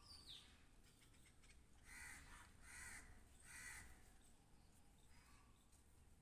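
Faint crow cawing three times, a little under a second apart, around the middle, over near silence. A short falling bird chirp comes right at the start.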